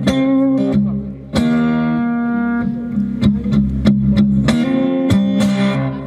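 Acoustic guitar played live: strummed chords that ring out, with a brief lull about a second in before a strong new chord.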